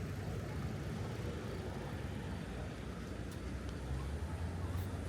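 Steady city traffic noise: a low rumble of passing vehicles.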